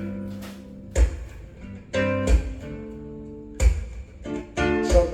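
Recorded song playing in an instrumental break: plucked acoustic guitar notes with a low thump on the beat about every second and a quarter, and no singing.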